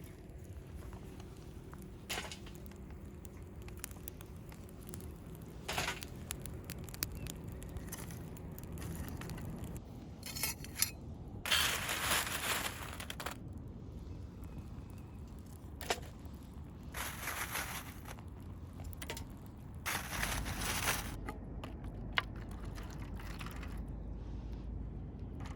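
Crunching and crackling handling noises in several short bouts a few seconds apart, with a few sharp clicks between them and a faint low hum through the first half.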